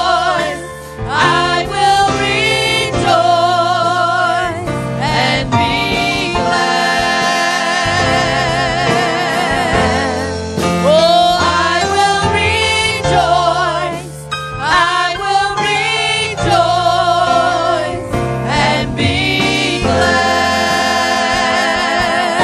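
Gospel worship song: voices singing long, wavering held notes over instrumental accompaniment.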